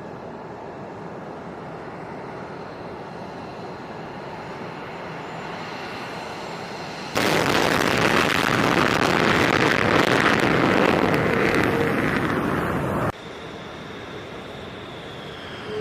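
Jet fighters' engines with a steady whine as the aircraft taxi. About seven seconds in, a much louder, even jet roar of a takeoff run cuts in abruptly and stops just as abruptly six seconds later. After that comes the quieter whine of a taxiing F-16's engine, falling slightly in pitch near the end.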